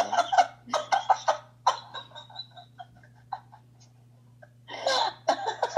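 A woman laughing hysterically in rapid bursts that die down to faint scattered giggles, then a loud outburst of laughter again near the end.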